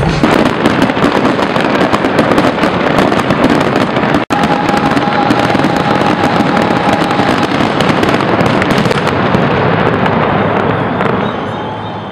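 Fireworks display: a dense, continuous barrage of bangs and crackling that dies away near the end.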